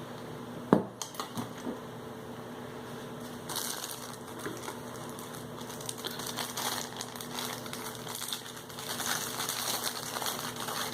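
A sharp click about a second in as the Pocket Fisherman's built-in plastic tackle compartment is opened, then spells of rustling and light clicking as the small tackle inside is handled.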